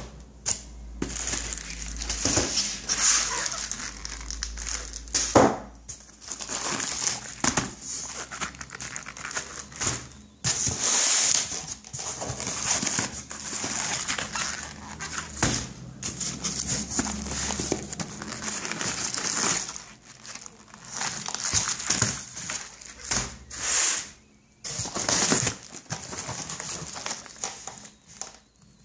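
Packaging crinkling and rustling as an order of firecrackers is unpacked and handled by hand, with irregular crackles and a few sharp clicks and knocks.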